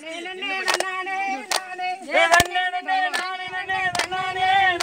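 A Tamil folk song with a melodic, sung line, punctuated by sharp hand claps about every 0.8 seconds, the rhythmic clapping of kummi dancing.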